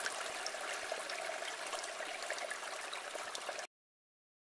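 A stream of water running over rocks, an even rushing and trickling that cuts off suddenly near the end.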